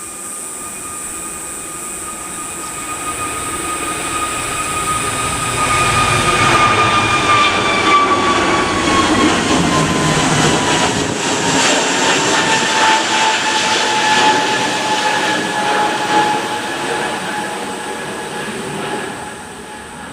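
Jet airliner's engines passing on takeoff. The engine whine slides down in pitch about halfway through as the roar swells to its loudest, then eases away.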